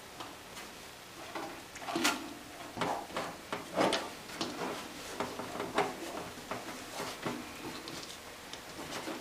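Duct tape being pressed and smoothed down by hand over the holes of a steel fuel tank, crinkling and rustling in irregular crackles, the loudest about 2 and 4 seconds in.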